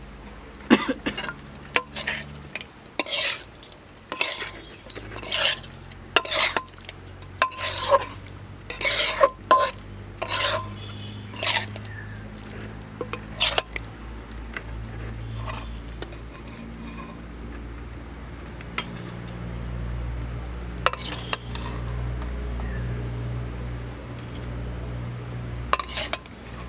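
Metal spatula scraping and stirring thick curry in an aluminium kadai: a quick run of scrapes and clanks against the pan, about two a second, for the first half. After that only a few scattered clinks as the curry is spooned out.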